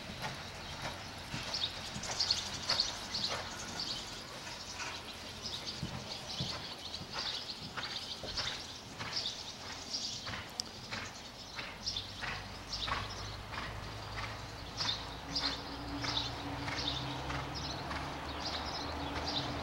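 A horse's hoofbeats in a steady rhythm, with small birds chirping throughout. A low steady hum joins in about two-thirds of the way through.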